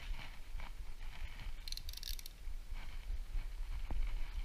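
Light metallic clicks and clinks of tools and engine parts being handled, with a brief cluster of sharper clinks about two seconds in, over a low steady hum.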